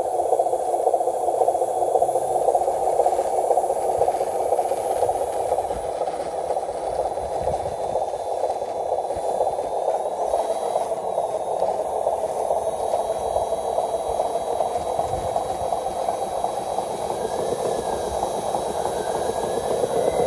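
A small motor running steadily with a fast, even buzzing whirr.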